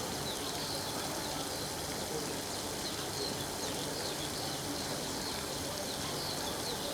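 Steady splashing rush of a fountain spraying into a dam, with many short bird chirps over it.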